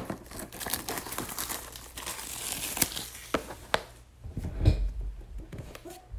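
Plastic shrink wrap crinkling and tearing as a sealed trading-card box is unwrapped, with a soft thump from the box being handled a little under five seconds in.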